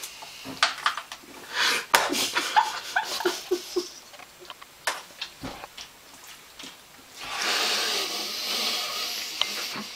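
A man eating with a fork from a metal bowl: sharp clicks of the fork on the bowl, a few short 'mm' moans of enjoyment, and breathing. About seven seconds in comes a loud rushing noise lasting about two seconds.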